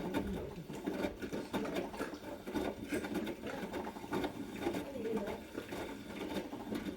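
Hotpoint Smart Tech machine running with a fast, uneven mechanical rattling and clattering, which the owner fears is its motor dying. There is a sharp knock right at the start.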